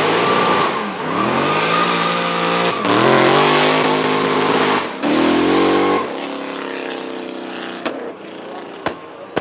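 Red Bull Lexus drift car's engine revving hard as it slides past, the revs climbing and dropping several times over a hiss of tyres and dust. About six seconds in it goes quieter as the car pulls away, with a few sharp cracks near the end.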